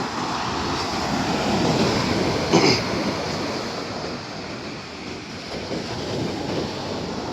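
Sea surf washing on the beach, with wind on the microphone. The wash swells louder about two seconds in, and a brief sharp sound cuts through just after.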